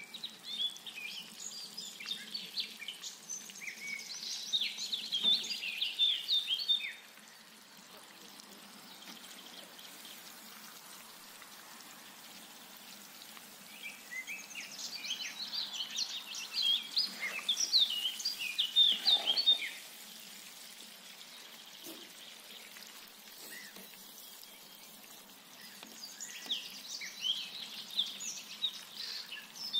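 Hot oil sizzling and crackling in a cast-iron cauldron as pieces are deep-fried. It comes in three spells of dense, quick crackle that cut off abruptly, with quieter stretches between them.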